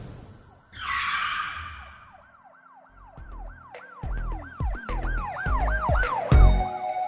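A whoosh about a second in, then a siren-like sound effect yelping up and down about three times a second, over music with heavy bass hits that builds toward the end.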